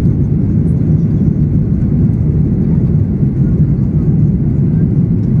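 Steady low roar of a Boeing 737-800's CFM56-7B jet engines and rushing air, heard inside the cabin during the climb just after takeoff.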